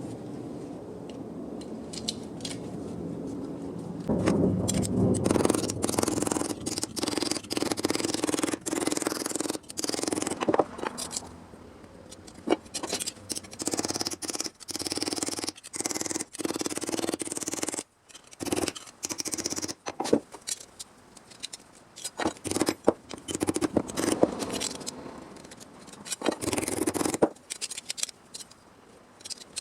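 Hand tools working car-body sheet steel: rough scraping and snipping with many sharp clicks, louder from about four seconds in and pausing briefly now and then.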